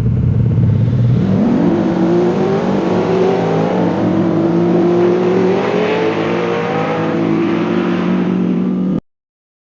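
AI-generated imitation of a V8 race car engine: a low steady running note, then revving that climbs slowly in pitch from about a second in and levels off, cutting off suddenly near the end.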